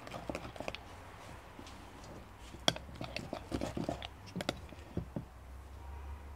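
A spoon stirring homemade slime in a glass bowl: soft sticky squelches and scattered clicks of the spoon against the glass.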